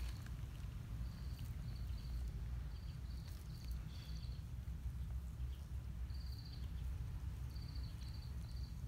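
Low wind rumble on the microphone, with a small bird's short high chirps repeated in runs of three or four.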